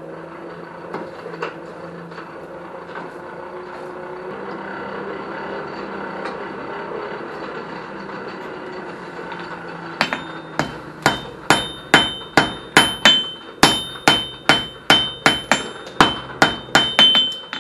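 For the first ten seconds, a steady hum from the coal forge's blower while the steel heats. Then a hand hammer strikes a welding-hot bundle of mild steel rod offcuts on the anvil about twenty times in quick succession, roughly three blows a second, each with a bright ring from the anvil. These blows tack forge-weld the pieces together.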